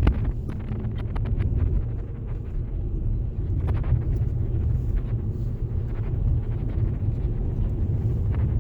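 Steady low rumble of road noise from a moving car, tyres and engine heard from inside.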